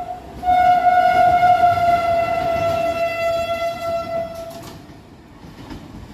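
WAG5 electric locomotive's horn: one steady blast that breaks off briefly near the start, then sounds again for about four seconds, sagging slightly in pitch before it stops. Under it runs the rumble of the locomotive on the rails.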